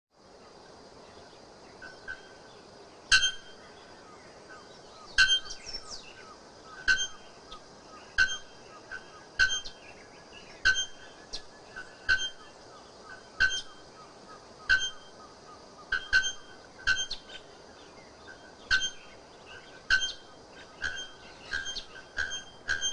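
Bare-throated bellbird (ferreiro) calling: single loud, ringing metallic notes like a hammer striking an anvil, repeated every one to two seconds and coming faster near the end.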